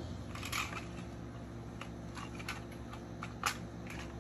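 Scattered light clicks and taps of small plastic Jollibee kiddie-meal toy cars being handled on a play mat, the sharpest one about three and a half seconds in.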